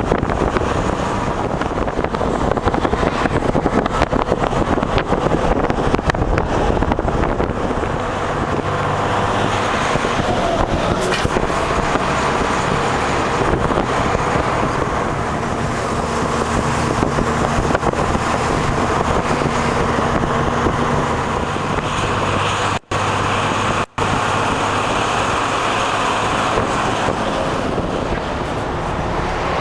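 Bus engine and road noise heard from inside the moving bus: a steady rumble with wind and tyre hiss, the engine hum shifting in pitch now and then. The sound cuts out twice for an instant, a second apart, about three-quarters of the way through.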